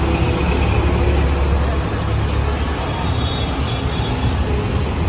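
Steady, loud low rumble of vehicle engines and road traffic.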